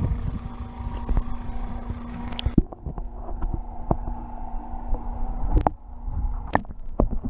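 An action camera going under water: about two and a half seconds in, the sound suddenly turns muffled as it submerges, leaving low rumbling water noise and scattered knocks against the housing, with a steady hum underneath.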